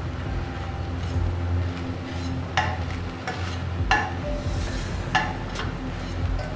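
Ground meat sizzling as it is stirred in a stainless steel pan, with a metal spatula scraping the pan and clattering against it three times, about two and a half, four and five seconds in.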